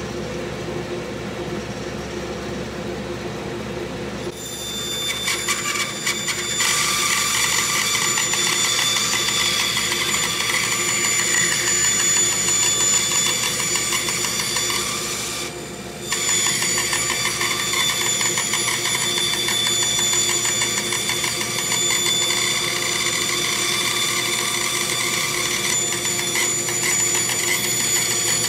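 Shop Fox bandsaw running, its blade slowly crosscutting through a large cedar block. The cutting noise comes in about four to six seconds in, with a steady whine on top, and holds steady, with a brief dip about halfway through.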